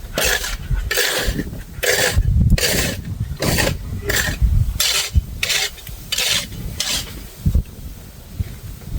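Snow shovel scraping across pavement in quick repeated strokes, about a dozen in a row, stopping about seven seconds in.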